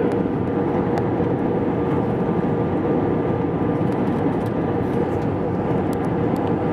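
Steady in-flight cabin noise of an Airbus A320, heard inside the cabin: the engines and rushing air make an even, unbroken rumble with a faint steady tone running through it.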